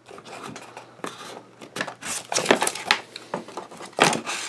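A paper booklet being slid and lifted out of a cardboard box: rustling and scraping of paper on cardboard in several bursts, loudest a couple of seconds in and again near the end.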